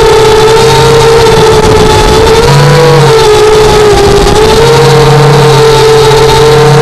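FPV quadcopter's electric motors whining steadily in flight, the pitch wavering slightly as the throttle shifts, with a lower hum that comes and goes. Loud throughout.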